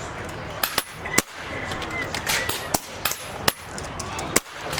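PCP air rifles firing, several shooters at once: about ten sharp, irregularly spaced shots, the loudest a little over a second in.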